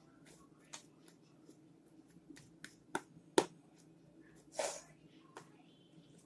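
Fluffy slime being worked by hand, giving a few sharp clicks and pops as it is squeezed, and one longer wet squelch about four and a half seconds in.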